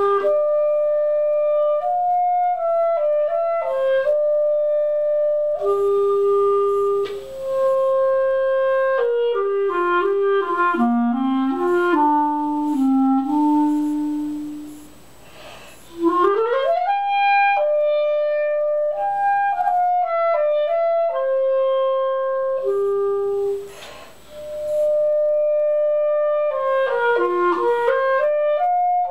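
Unaccompanied clarinet playing a single melodic line in phrases. A passage falls into the low register before a short pause about halfway through, a quick upward run follows it, and there is another short pause about two thirds in.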